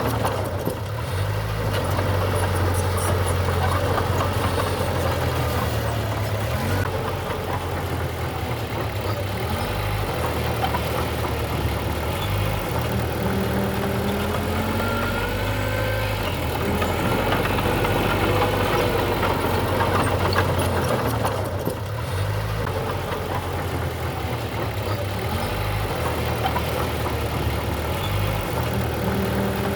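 Diesel engine of heavy earthmoving machinery running, a steady low hum that shifts up and down in steps every few seconds as it works.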